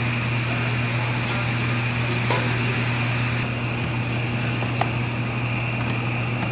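Steady low mechanical hum of ventilation fans, with a faint tick about two seconds in and another near five seconds.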